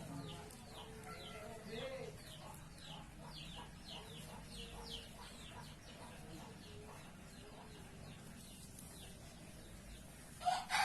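Birds chirping faintly: a run of short, high, falling chirps, a few a second, over a low hum. Just before the end a much louder call cuts in.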